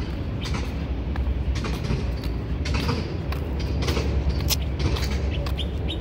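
Outdoor roadside ambience: a steady low rumble with many short, high bird chirps scattered through it.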